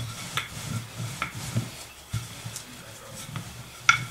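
Chapati rolling pin rolling out croissant dough on a floured surface: an uneven low rumble broken by scattered light clicks and knocks, with about a handful of sharper ones.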